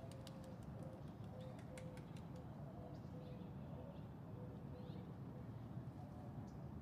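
Birds calling at dawn: a dove gives a steady run of short, low coos that stop after about four seconds, while small birds add high chirps and ticks, over a faint low background rumble.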